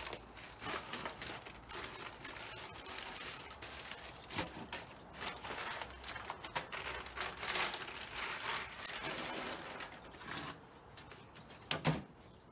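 Rustling and crinkling handling noise with many small clicks and knocks as suet food is handled and loaded into a bird feeder; it dies down about ten seconds in.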